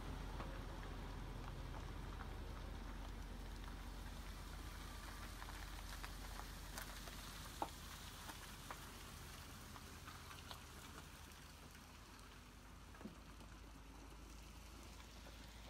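Loaded Peterbilt 389 log truck rolling slowly on a gravel road: a low engine rumble with the crunch and hiss of tyres on gravel, fading steadily as it moves off, with a few sharp ticks along the way.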